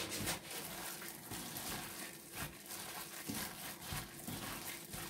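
A plastic-gloved hand mixing and squeezing a wet mass of cooked spaghetti, shredded carrot and zucchini, flour and egg in a ceramic bowl: irregular soft wet squishes, several a second.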